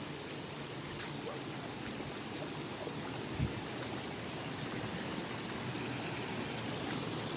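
Steady rush of a forest waterfall, an even hiss of falling water, with a brief low thump about halfway through.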